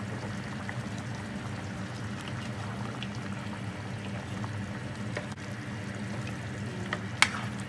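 Thick tomato stew being stirred in a pot with a plastic spoon, the sauce sloshing and squelching over a steady low hum. A single sharp knock comes near the end.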